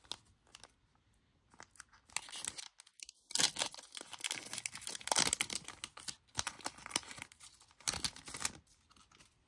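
Plastic trading-card pack wrapper being torn and crinkled, a run of sharp crackling that starts about two seconds in and lasts most of the rest.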